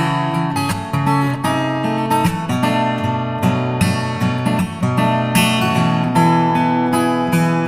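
Background music: strummed acoustic guitar with changing chords and a steady rhythm.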